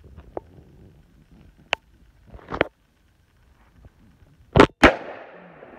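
AR-15 rifle fired: two loud, sharp reports a quarter second apart near the end, the second trailing off in a ringing echo. A few quieter clicks and knocks come before them.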